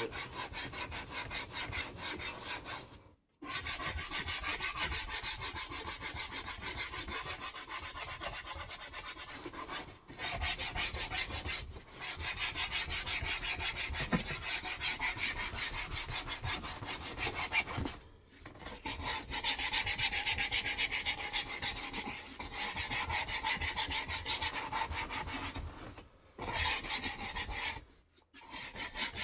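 Brush scrubbing cleaner-soaked boat vinyl with rapid back-and-forth strokes, stopping briefly several times. It is the sound of agitating all-purpose cleaner to lift heavy dirt out of the vinyl.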